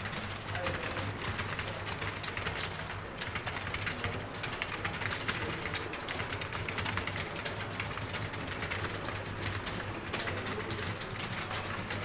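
Computer keyboard clattering under fast, continuous typing, dense keystrokes throughout, over a steady low hum.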